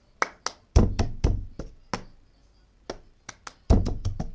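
A plastic cup being knocked and tapped on a book, mixed with hand claps and slaps, in a cup-game rhythm: about a dozen sharp hits in uneven groups, two of them heavier thuds about a second in and near the end.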